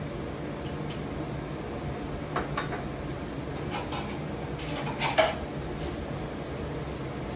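Kitchen utensils clinking and knocking against cookware while a sauce is being cooked: a few short clatters, the loudest about five seconds in, over a steady low hum.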